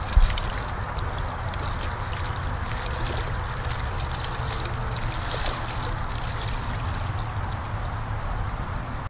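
Shallow trout stream running steadily, with a hooked trout splashing at the surface as it is drawn to a landing net. A single sharp thump sounds just after the start, the loudest moment.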